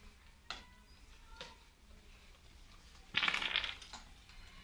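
Wild boar rooting and chewing in dry leaf litter and roots: faint crunching and rustling, with a louder rustling burst about three seconds in.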